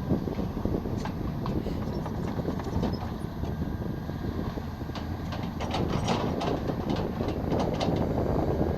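Excavator at work: its engine running steadily under scattered metallic clanks and rattles, which come more thickly in the second half.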